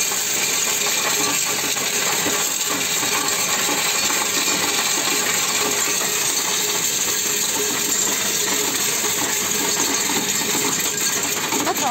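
Coinstar coin-counting machine taking in a steady stream of copper euro cent coins pushed by hand into its tray: a continuous, dense jingling clatter of small coins as the machine counts them.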